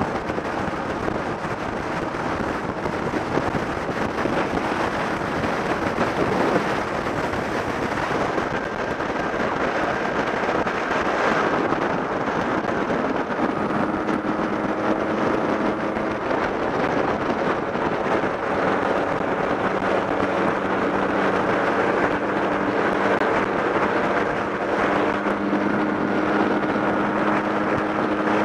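Motor scooter riding at road speed: wind rushing over the microphone, with the engine running underneath. From about halfway through, a steady engine hum comes through more clearly, shifting slightly in pitch.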